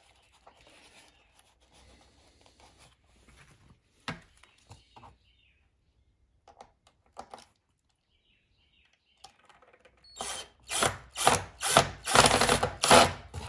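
Faint handling clicks. Then, about ten seconds in, a cordless drill-driver runs in a quick series of short bursts for about three seconds as it works a screw or bit through the plastic rims of two hubcaps.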